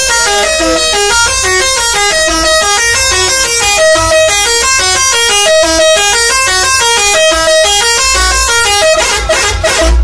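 A bus's 'telolet' musical air horn playing a fast melody of short, stepped notes without a break, with a few short noisy bursts near the end.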